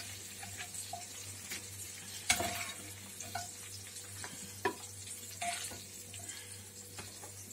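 Quiet sizzling of pork ribs and a tomato-and-paprika sofrito frying in a clay casserole, with scattered light knocks and scrapes of a utensil as the ribs and garlic head are lifted out; the sharpest knock comes about two seconds in. A steady low hum runs underneath.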